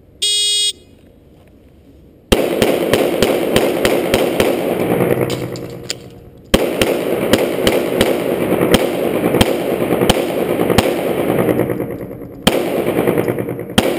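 Shot timer beep, then about two seconds later a rapid string of 9mm pistol shots from an H&K VP9, loud and echoing in a hard-walled indoor range. The firing breaks off about six seconds in for a mandatory magazine reload, resumes at a fast pace, and pauses briefly once more near the end.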